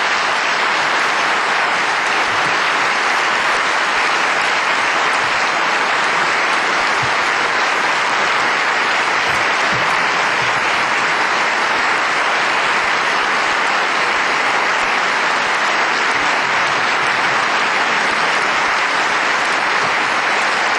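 Audience applauding steadily and at full strength, without letting up.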